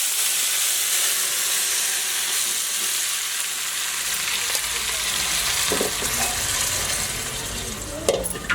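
Hot oil sizzling steadily in a cooking pot as food fries: a loud, even hiss that eases slightly toward the end, with a couple of light knocks in the second half.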